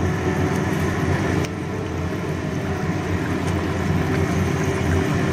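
Chicken and potato curry boiling hard in a frying pan just after warm water was added, a steady bubbling and sizzling over a continuous low hum.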